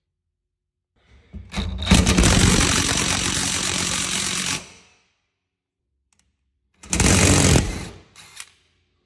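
Cordless impact wrench hammering as it drives an aluminium dimple die into the sheet-metal pan of a plasma table. It runs in two bursts of rapid hammering: a long one starting about a second in, and a shorter one near the end followed by a couple of brief blips.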